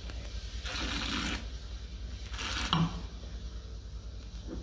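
A man tasting white wine from a glass: a sip drawn in noisily, a second short noisy breath about two and a half seconds in, and the glass being set down on the table.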